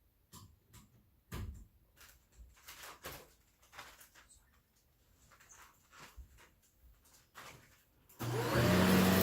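Scattered light knocks and clicks, then near the end a vacuum cleaner switches on, its motor spinning up with a rising whine into a steady run.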